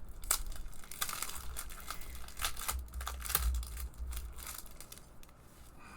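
Crinkling and rustling of packaging and sticker sheets as a planner sticker kit is unpacked and handled, in irregular bursts, with a few low bumps around the middle.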